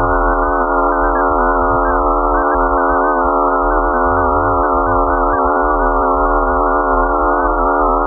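Spacecraft radio data turned into sound, presented as the sound of Phobos, Mars's moon: an eerie electronic drone of many steady layered tones with one strong held tone in the middle, over a low hum.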